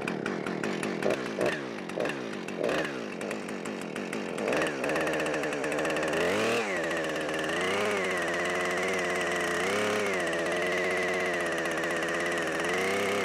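Husqvarna 455 Rancher two-stroke chainsaw, just started, running unevenly with short revs. From about four seconds in it is held at high revs, and its note dips briefly several times as the chain bites into the bark to score marks on a log.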